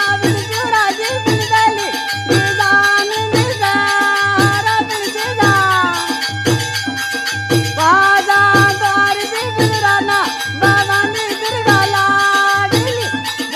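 Folk-style dance music with a steady drumbeat, shaker-like percussion and held melody lines.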